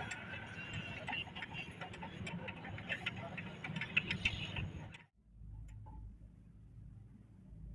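Tractor running, with rapid, irregular ticking and clicking from inside the machine over a low engine hum. This is the kind of strange internal noise that leads to opening up the side brake. About five seconds in the clicking cuts off suddenly, leaving only the low rumble.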